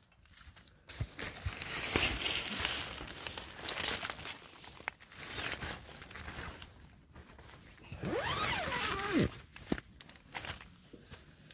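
Rustling and crinkling of a nylon down sleeping bag and plastic groundsheet being handled close up, with a short pitched sound that rises and falls about eight seconds in.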